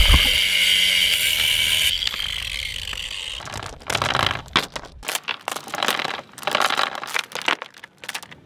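Rusty steel anchor chain clanking and rattling in irregular clatters as the links are handled and pulled out. Before that, a steady high whine with hiss fades away over the first few seconds.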